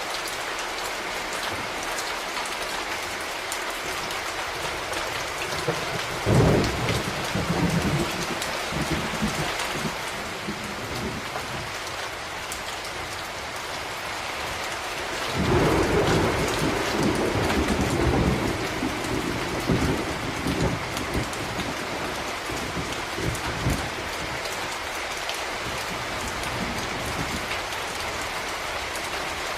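Steady rain with two peals of thunder: a sudden clap about six seconds in that rumbles on for a few seconds, and a longer rumble starting about halfway through that fades over several seconds.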